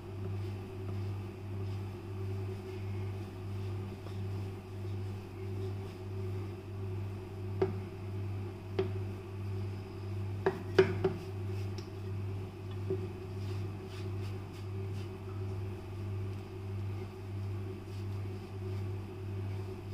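Wooden rolling pin working crumbly chhena on a bamboo chopping board, with a handful of sharp wooden knocks around the middle. Underneath is a steady low hum that swells and fades about one and a half times a second.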